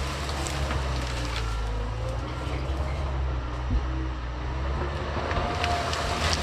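John Deere 650K crawler bulldozer running with a steady low diesel rumble, with scattered crackles and snaps of brush breaking and a few faint brief squeaks.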